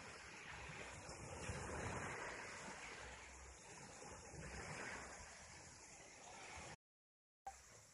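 Faint steady rush of sea surf, with wind rumbling on the microphone. The sound cuts out completely for about half a second near the end.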